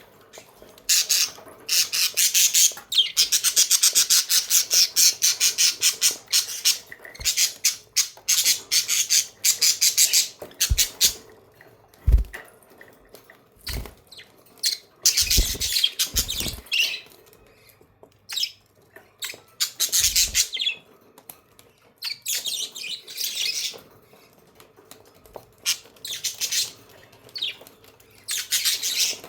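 Budgerigars (budgies) chirping and chattering in rapid high-pitched warbling runs, several spells of a few seconds each with short pauses between. A few soft low thumps come in the middle.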